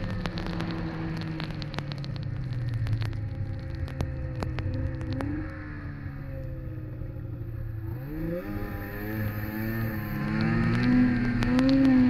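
Snowmobile engine running under way, holding a steady speed, easing off briefly partway through, then accelerating with a rising pitch over the last few seconds. Scattered sharp ticks are heard in the first half.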